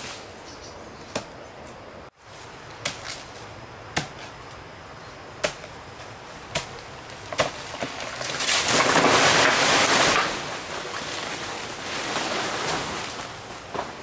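Single sharp knocks, one every second or so, then a louder rush of noise lasting about two seconds and a weaker one after it.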